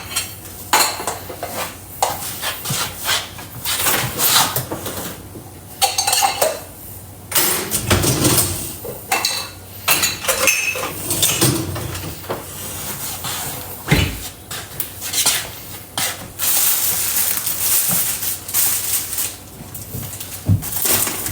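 Dishes and cutlery being handled in a kitchen: repeated clinks, clatters and knocks of crockery and metal utensils, with a stretch of steady hiss about three-quarters of the way through.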